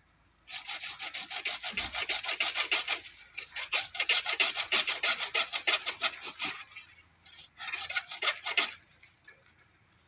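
Pruning hand saw cutting through an almond tree branch with quick back-and-forth strokes, stopping briefly about two-thirds of the way in, then a short second run of strokes.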